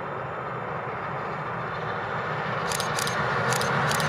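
A train approaching, its running noise growing steadily louder. Four short high-pitched squeaks come near the end.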